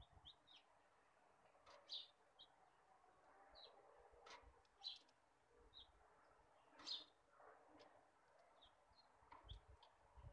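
Near silence, with faint, short high chirps at irregular moments and a few soft clicks.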